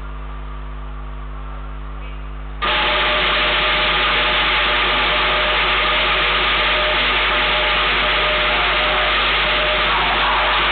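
Lion dance percussion of drum and clashing hand cymbals starts suddenly about two and a half seconds in and plays on loud and dense. Before it, only a low steady hum.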